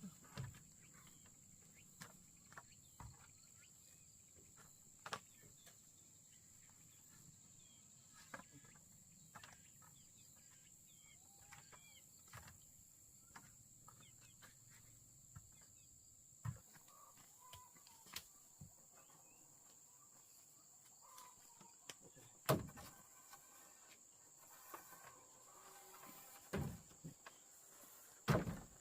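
Faint, scattered knocks and taps, the loudest two about two-thirds of the way in and near the end, over a steady high-pitched insect drone.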